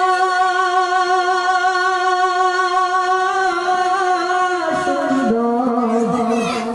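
A singer's voice holding one long note with a slight vibrato in an Islamic devotional song (gojol), then dropping to a lower held note about five seconds in.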